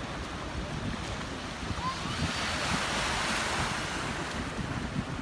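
Small waves washing on a calm sea shore, one wash swelling and fading about halfway through, with wind rumbling on the microphone.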